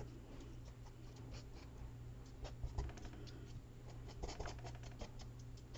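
Paper being pressed and rubbed down by hand as a piece is glued on: faint, scattered rustles and small ticks over a steady low hum.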